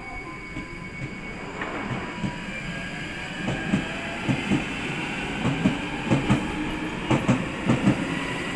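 London Underground trains running through a station on adjacent tracks. A steady rumble grows louder, and from about three and a half seconds in the wheels clack over rail joints in quick pairs.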